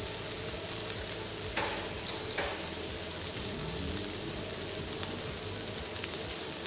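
Noodles and chicken sizzling gently in a non-stick frying pan over lowered heat: a steady frying hiss, with two faint ticks about one and a half and two and a half seconds in.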